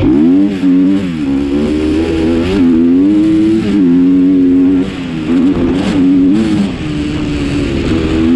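Off-road vehicle engine running hard under changing throttle while being ridden, its pitch dipping and rising again and again, with a sharp dip right at the start and wavering revs near the end.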